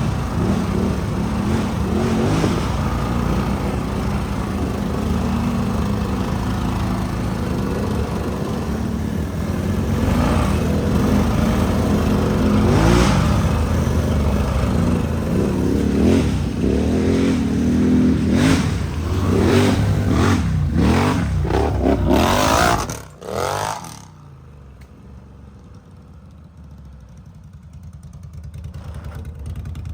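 ATV engines running hard on a trail, revving up and down repeatedly. About 23 seconds in the sound drops suddenly to a low, quiet idle, then picks up again near the end.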